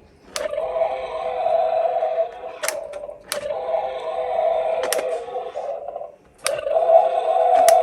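Electronic dinosaur roar sound effect from a toy dinosaur mask's small built-in speaker, played three times in a row with short breaks between, each run about two to three seconds long, with sharp clicks among them.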